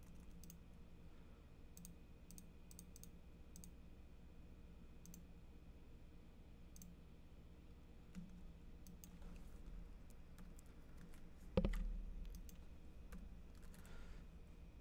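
Faint, scattered computer mouse clicks and keyboard keystrokes, with one louder dull thump about three quarters of the way through.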